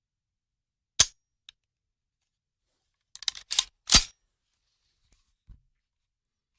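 Rifle sound effect: a sharp shot about a second in, a faint click, then a quick run of clicks and a second shot at about four seconds.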